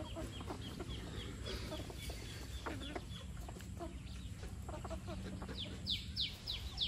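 Free-range chickens clucking as they forage, with chicks peeping in short, falling high notes. The peeping grows louder near the end, at about three peeps a second.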